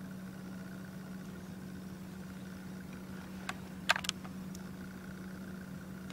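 A steady low electrical hum with a faint high steady whine above it, broken about three and a half to four seconds in by a few sharp clicks, the loudest a quick cluster of clicks.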